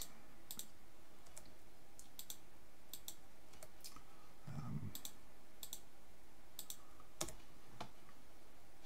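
Computer mouse button clicking, about ten scattered clicks, many heard as quick press-and-release pairs. Each click places a cut point with a 3D modelling program's knife tool.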